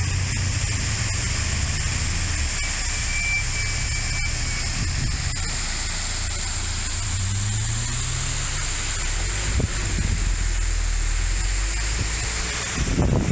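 Steady rush of a waterfall pouring down a rock face, with the low hum of car engines passing on the road.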